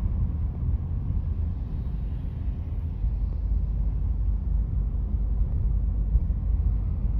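Road and tyre noise of a moving car heard from inside the cabin: a steady low rumble with no distinct events.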